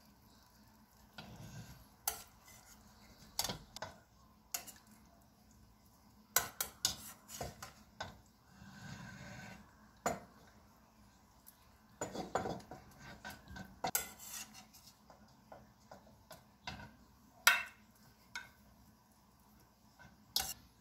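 A metal spoon clinking and scraping against a stainless steel pot and a ceramic baking dish as braised mackerel and pork chop are scooped out, in scattered knocks and scrapes with pauses between.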